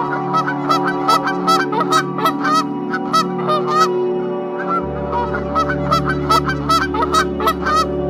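Canada geese honking over and over, about three short upward-bending honks a second, over a steady ambient music drone that gains a deep bass note about halfway through.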